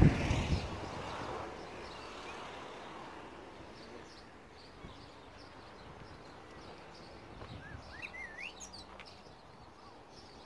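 Quiet outdoor ambience with small birds chirping now and then, the clearest a short warbling call about eight seconds in. A loud low rumble at the very start fades away within the first second or two.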